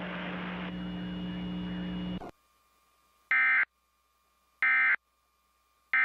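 A steady low hum cuts off about two seconds in. Then come three short, identical bursts of Emergency Alert System end-of-message data tones, about 1.3 seconds apart, which mark the close of the alert test.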